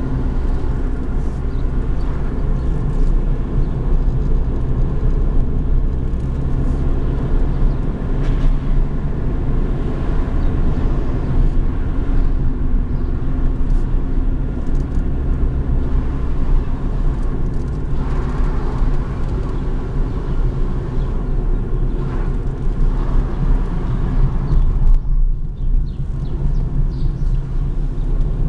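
A car's engine and tyres running while driving, heard from inside the cabin: a steady low rumble.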